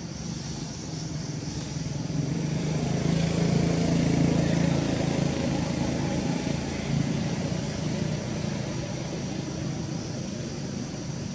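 Engine drone of a passing motor vehicle, swelling to its loudest about four seconds in and then slowly fading away.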